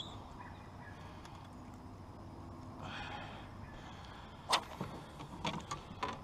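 Fishing gear being handled in a small boat: a few sharp clicks and knocks over a quiet outdoor background, the loudest single click about four and a half seconds in and a few lighter ones near the end.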